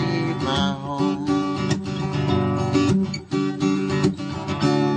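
Background song without singing: acoustic guitar strumming chords, with a last chord struck near the end and left ringing.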